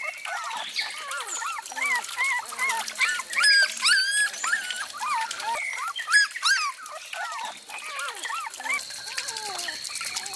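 Puppies whimpering and yelping: many short, high cries that rise and fall, often overlapping.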